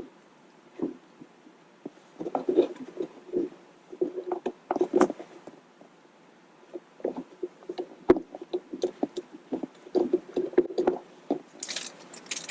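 Hand-handling noise of an aftermarket shift knob being twisted on the shifter: irregular rubbing, scraping and light clicks, with the leather shift boot rustling. A brief louder rustle comes near the end.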